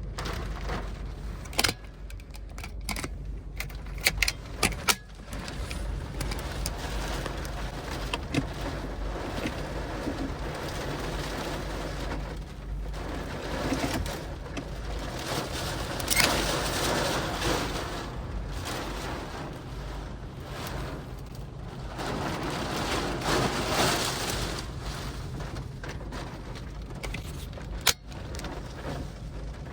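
Storm wind gusting around a parked car, with a steady low rumble and two long surges of rushing noise; a cluster of sharp taps or knocks in the first few seconds.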